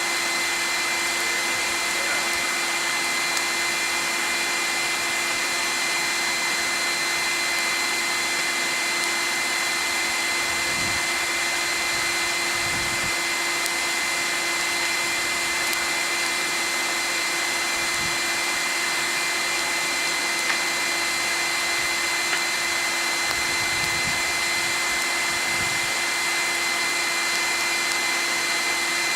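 Electric blower motor running steadily, forcing air into a forge, with a constant whine over rushing air. A few faint low thumps come through under it.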